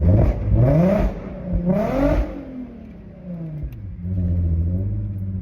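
Car engine revved twice in quick blips, each rising and falling in pitch, then dropping back to a steady idle.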